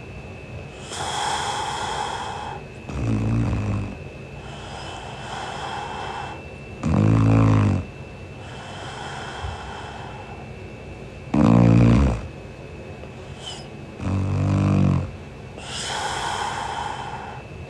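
A young woman snoring in her sleep. There are four low, buzzing snores of about a second each, a few seconds apart, with a softer hissing breath between each pair.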